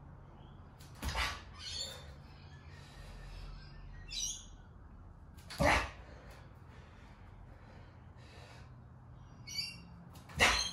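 Three sharp knocks, about four and a half seconds apart, one for each rep of a landmine split jerk as the anchored barbell is driven up and the bare feet land in the switched split stance, with fainter short high-pitched squeaks or chirps between them.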